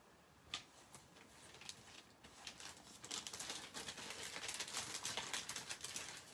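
Faint rustling and crinkling of paper being handled, after a single click about half a second in, growing denser and busier from about two seconds in.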